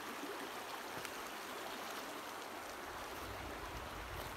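Creek water running steadily, an even rushing hiss. A low rumble joins about three seconds in.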